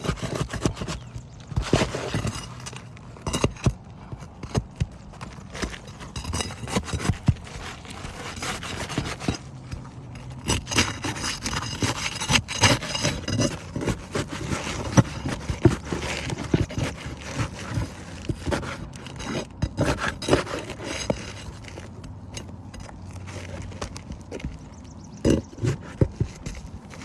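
Roof shingles being pried and worked loose to remove a shingle strip for a repairability test: irregular scraping with many sharp knocks and clicks throughout.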